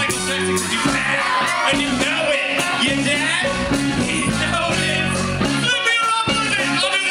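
Live rock band playing: a male singer over electric guitar, drums, keyboard and trumpet, with a steady beat.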